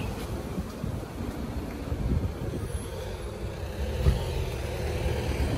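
Road traffic on a town street: vehicles driving past with a steady low rumble.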